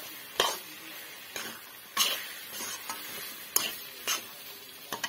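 Metal spatula stirring a thick, sizzling fruit pickle in an aluminium kadai: about six sharp scrapes of the spatula against the pan at uneven intervals, over a steady low sizzle.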